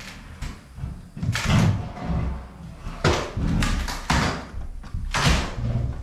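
Metal kennel panels and door being pulled apart and handled: a string of irregular bangs and rattles, six or so loud knocks.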